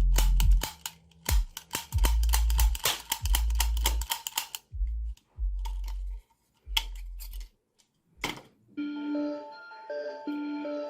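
Background music: an electronic track with heavy bass hits and rapid ticking percussion, thinning out after about five seconds. A sharp crack a little after eight seconds, then a chiming, music-box-like tune.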